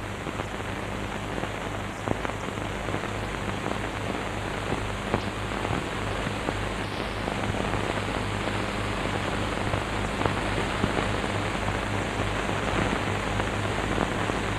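Steady hiss with a low, even hum and a few faint clicks: the background noise of an old optical film soundtrack. No distinct machine sound stands out.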